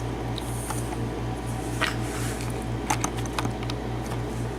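Low steady hum with a fast regular pulse, under a few light clicks of small padlock parts and pins being handled.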